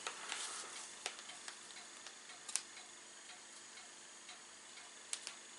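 A few faint, irregular clicks and crinkles from a foil packaging bag being handled.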